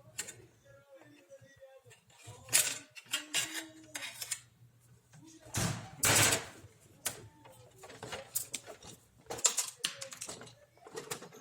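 Irregular clicks, knocks and clatter of plastic printer parts and tools being handled while a laser printer is taken apart, with a louder scraping rustle about six seconds in.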